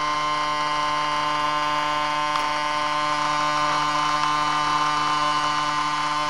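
Small electric motor in a 1/24 scale Junkers Ju 87B Stuka model, spinning its scratch-built propeller at a steady speed with a constant-pitch whirring hum.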